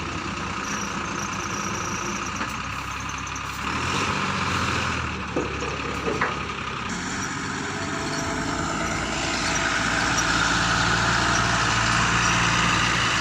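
Heavy diesel engine of the earthmoving machinery running, louder about four seconds in and again from about seven seconds as it takes load, with two short knocks about halfway through.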